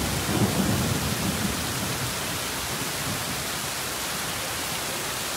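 Heavy rain mixed with hail pouring down, a steady dense hiss. A low rumble fades out over the first second and a half.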